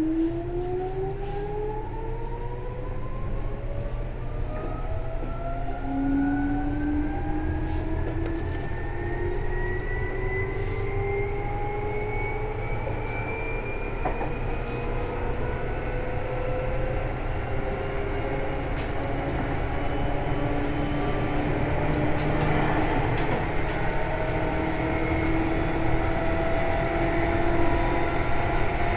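Seibu 2000 series electric train accelerating, heard from on board. Several whining motor tones climb in pitch, steeply at first and then more slowly, over a steady low rumble of the running gear.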